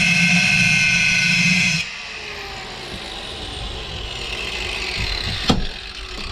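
Angle grinder running loud and steady while grinding an aluminium moped crankcase half, then dropping away about two seconds in and spinning down. A single sharp click comes near the end.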